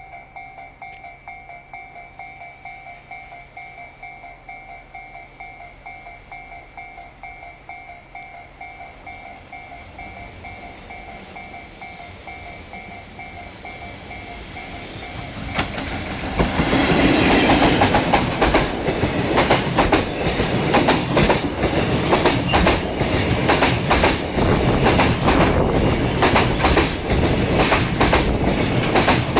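Japanese level-crossing warning bell ringing in a steady pulsing two-tone pattern while a train approaches. About halfway through, a JR Freight EF65 electric locomotive and its Koki container wagons pass close by, loud, with a rapid clatter of wheels over the rail joints.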